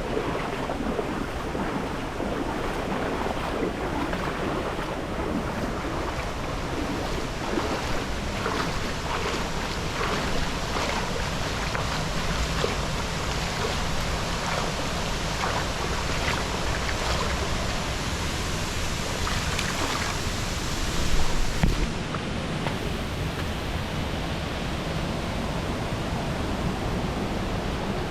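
Steady roar of rushing, falling water, with a short louder low rumble about three-quarters of the way through.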